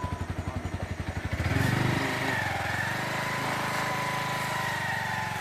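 Small engine idling with a fast, even low pulsing. About a second and a half in, it turns louder and steadier, with a faint wavering whine.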